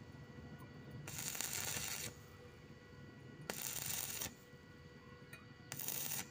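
Stick-welding arc crackling and hissing in three short bursts of about a second or less, the arc going quiet between them.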